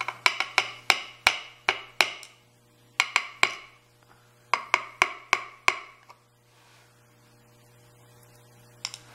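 Small metallic clicks and taps of steel tweezers against a brass lock plug and its pins as the key pins are picked out of a Schlage Everest cylinder, each with a brief ring. They come in three quick clusters, then pause, with two more clicks near the end.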